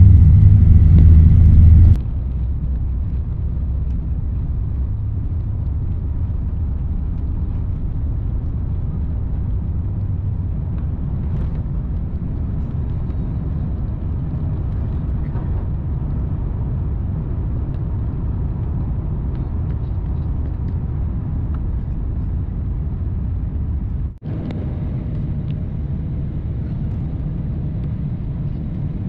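Steady low rumble of a jet airliner heard from inside the cabin as the plane gets under way. It is louder for the first two seconds, drops abruptly, and dips briefly near the end.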